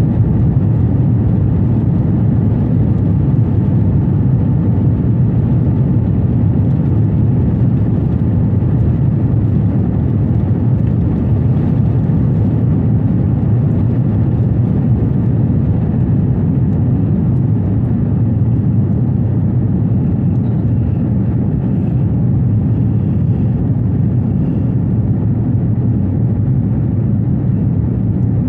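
Jet airliner cabin noise in flight: a steady low drone of engines and rushing air heard from inside the cabin.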